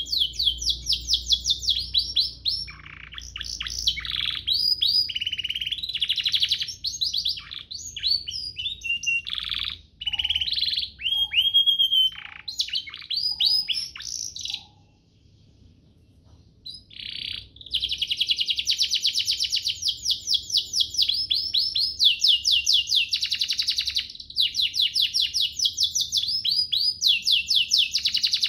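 Domestic canary singing: fast trills and rolls of rapidly repeated high notes, broken by a few falling whistles about ten seconds in. After a short pause halfway through it starts again with a long, dense, unbroken trill.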